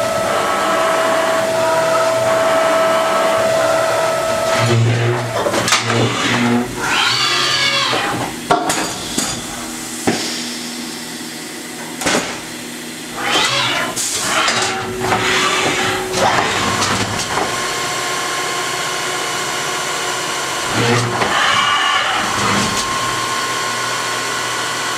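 Haas HS-1RP horizontal machining center moving its axes, its telescoping way covers squealing in several drawn-out squeaks that rise and fall in pitch over the machine's steady hum. The squeal comes from the way covers, which the owner says make a little noise but work fine and are not a fault in the machine.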